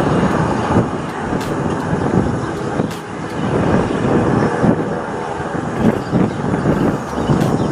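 Embraer VC-2 (E190) jet on final approach, its two turbofans making a continuous roar. The low rumble under it rises and falls unevenly.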